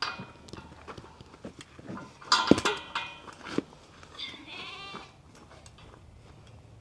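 Steel pipe pen gate and panels clanking and ringing as they are knocked, loudest about two and a half seconds in. About four seconds in, a sheep bleats briefly.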